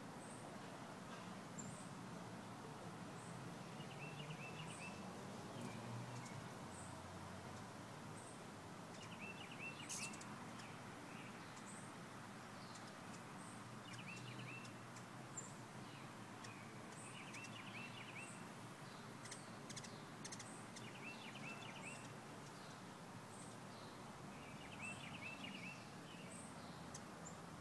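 Many hummingbirds at backyard feeders making thin, high chip notes over and over. Another songbird repeats a short warbled phrase every three to four seconds, over a faint steady outdoor hum.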